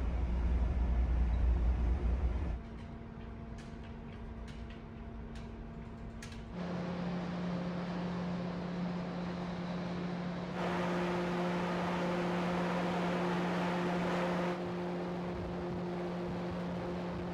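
Steady drone of a large car ferry's machinery heard on board: a low hum with a few steady tones under a noisy rush. Its pitch and loudness change abruptly a few times, and a broader rushing noise swells for about four seconds in the middle.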